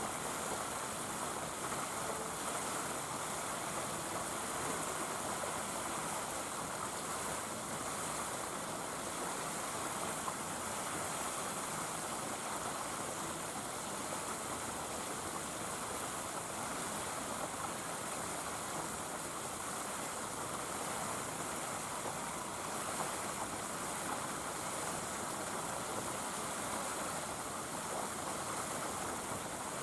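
Steady rushing background noise with no distinct sounds standing out.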